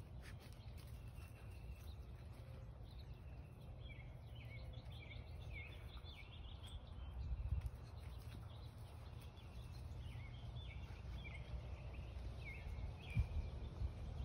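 Birds chirping repeatedly in short falling notes, starting about four seconds in, over a steady low rumble.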